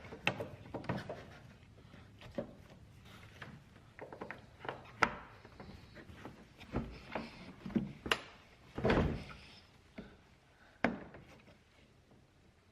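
Irregular clicks, taps and knocks of hard plastic being handled: a car headlight assembly being turned over and worked on by hand, with a few louder knocks.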